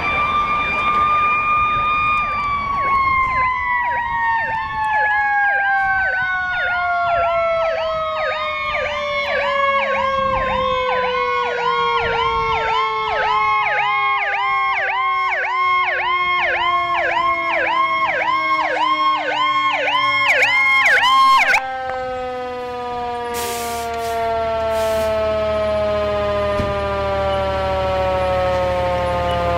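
Arriving fire engine's sirens: a long wail that slowly winds down in pitch, overlaid by a fast warbling siren that cuts off about 21 seconds in. A few sharp clicks follow, then the truck's diesel engine idles low as it pulls up near the end.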